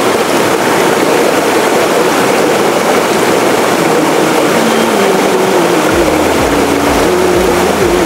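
Rushing water of a waterfall, a loud, steady roar of noise. A low, uneven rumble joins about six seconds in.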